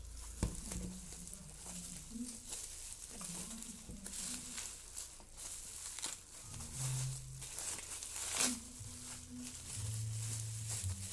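Packaging being handled: irregular crinkling and rustling of wrapping, with some tearing sounds.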